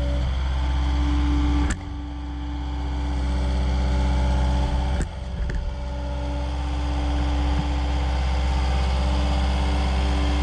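Diesel engine of heavy construction equipment running steadily, with two sharp clicks about two and five seconds in, each followed by a brief dip in level.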